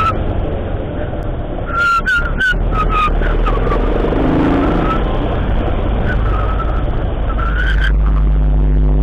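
Vehicle engine running on the road, heard raw with wind noise over it; a steady engine note comes in and the sound gets louder near the end.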